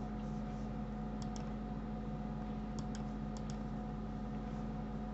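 Steady low electrical hum from the recording setup, with about six faint, short clicks in pairs from the computer's mouse or keyboard about a second in and again around three seconds in.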